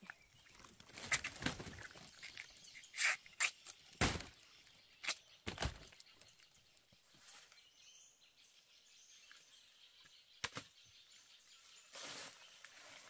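A handful of irregular knocks and rustles of something being handled, over a quiet outdoor background with faint bird calls.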